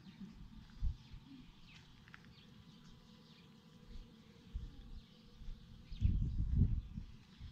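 Faint, scattered bird chirps in the open air, with a low rumble that swells about six seconds in.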